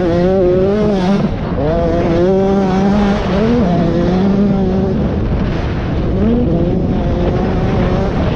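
KTM 85 cc two-stroke motocross bike engine at full riding revs, its pitch climbing and dropping again and again as the rider accelerates and shifts, over a steady rush of wind noise on the helmet-mounted microphone.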